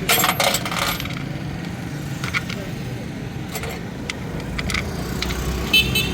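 Metal parts and tools clinking and tapping as they are handled: a quick cluster of clinks at first, then a few single clicks, and a short ringing clink near the end, over a steady low hum.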